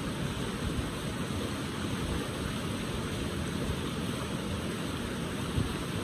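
River water rushing steadily over and between boulders in shallow rapids.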